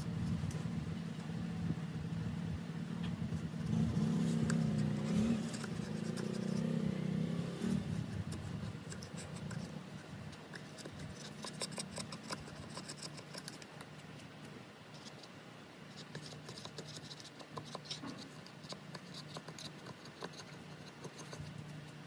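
Small hand tools scraping and clicking against a phone's back during a back-glass repair: many light scratchy ticks, thickest in the second half. A low hum runs underneath for the first eight seconds or so, then fades.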